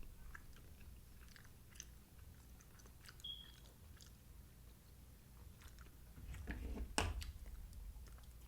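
A person chewing sausage and shrimp close to the microphone: quiet, wet chewing with scattered small mouth clicks, and one sharper click about seven seconds in.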